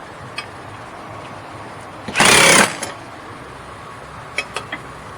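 Electric impact gun firing one short burst of about half a second, a little over two seconds in, running a hub assembly bolt down tight. A few faint clicks come before and after it.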